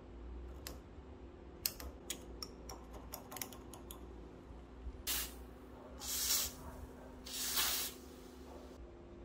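Aerosol spray can giving three hissing sprays, a short one and then two longer ones about a second apart, after a run of light clicks and taps on small metal parts.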